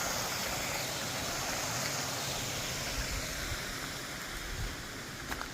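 Steady rushing hiss of creek water tumbling over rocks, easing slightly a few seconds in.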